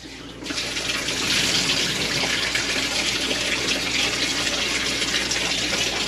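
Water running from a handheld shower head and splashing into a shower pan: a steady hiss that starts about half a second in.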